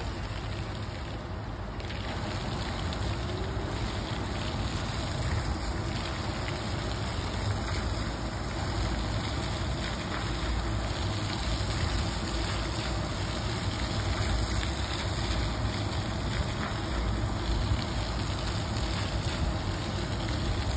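Steady rushing and splashing of water from fountain jets spouting onto wet paving, with a low rumble underneath.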